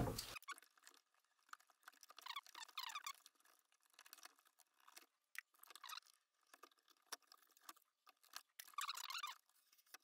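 Very faint scraping and rustling of plastic-sheathed electrical cable being scored with a utility knife and its sheathing peeled back, with scattered light clicks and a few short rustles, the longest near the end.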